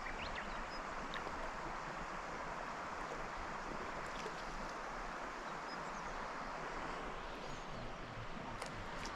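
Steady rush of flowing river water, with a few faint high chirps in the second half.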